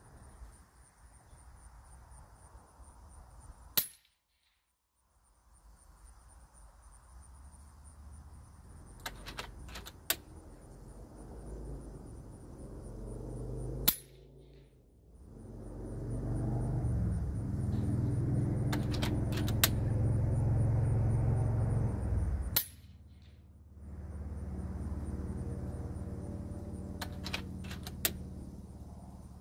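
A .30-calibre SKOUT Epoch PCP air rifle fires three times, about ten seconds apart, each shot a sharp crack. Between the shots come small metallic clicks of the action being cycled. Crickets chirp steadily in the background, and a low rumble swells up in the middle.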